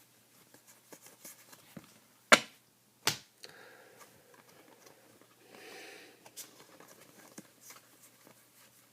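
Trading cards and a pack wrapper being handled: light ticks and rustles, with two sharp snaps a little under a second apart about two seconds in.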